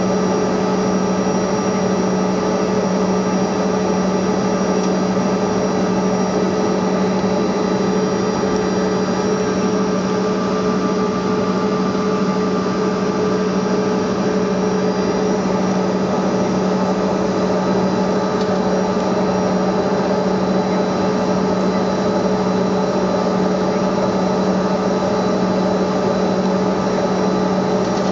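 Bombardier CRJ200's rear-mounted GE CF34 turbofan engines running at a steady low power, heard inside the passenger cabin: an even drone with a low hum and a few steady whining tones above it.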